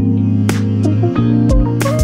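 Instrumental background music: held notes over a bass line, with a few drum hits.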